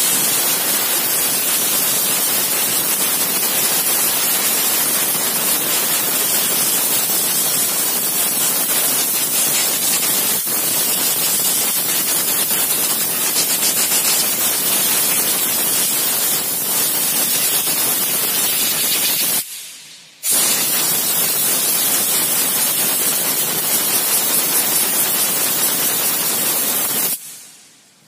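Compressed-air blow gun hissing loudly as it blasts dust out of a car AC blower motor's squirrel-cage fan. The air stops for about a second two-thirds of the way through, then runs again and cuts off shortly before the end.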